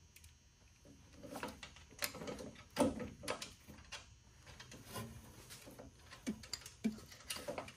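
Irregular small clicks and knocks of metal hardware being handled and fitted by hand at a shock absorber's top mount, with the loudest knock about three seconds in.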